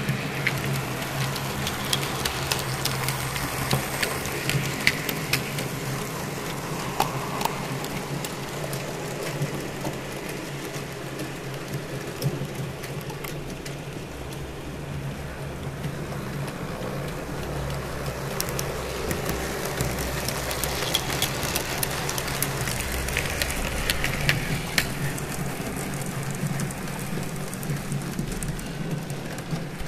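TT-scale (1:120) model trains running on the track: a steady clatter of small wheels with many little clicks, over a steady low hum.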